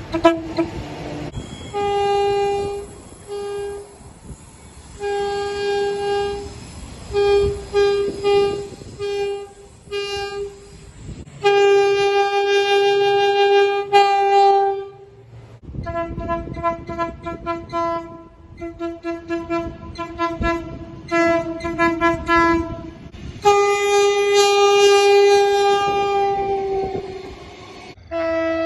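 Train horns sounding one after another: a run of short blasts, a long held blast about two fifths of the way in, more short blasts, then another long blast near the end.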